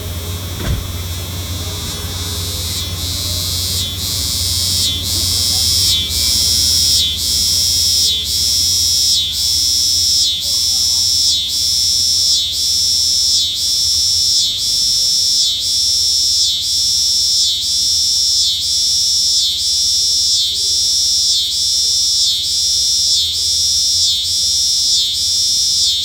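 Cicada singing: a loud, high-pitched buzz that swells over the first few seconds, then pulses steadily about once a second.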